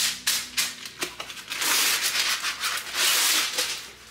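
Parchment paper rustling and crinkling as sheets are smoothed flat and slid over a granite countertop by hand: a run of dry scraping rustles, loudest in the middle.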